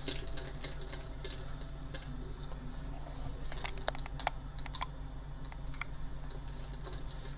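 Small scattered clicks and taps of a screwdriver working the screws out of the clamps on a Sound Magus X6500 amplifier's board, with a cluster of sharper ticks around the middle, over a steady low hum.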